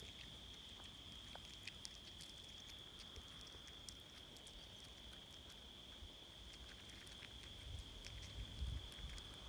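Faint small clicks and crackles of an eastern chipmunk cracking and handling sunflower seeds in an open hand, over a steady high-pitched drone. A low bump near the end.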